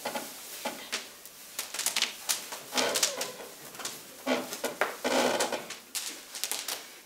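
A child actor yawning aloud several times, drawn-out breathy yawns with a little voice in them, among knocks and shuffles of movement on a stage.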